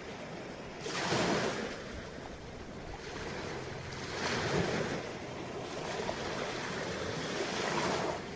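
Ocean waves breaking, with three swells of surf about every three to four seconds.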